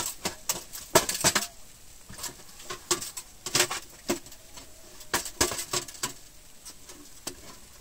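Laser-cut sheet-metal camp stove being opened out and assembled by hand: an irregular series of metallic clinks and clanks as its panels and clamps are handled and fitted together.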